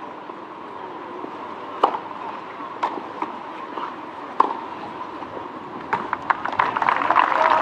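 Tennis ball knocks on a clay court: a few sharp, separate pops over a low crowd hush. Near the end comes a quicker run of knocks under rising crowd noise.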